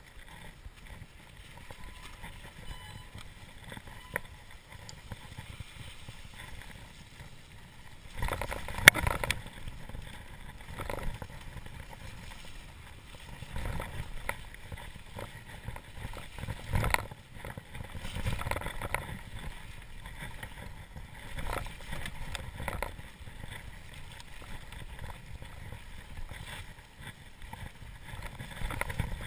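Mountain bike ridden over a muddy, snow-covered trail: steady rumble of the tyres and rattle of the bike, with louder knocks and clatter about 9 seconds in and again around 17 seconds in.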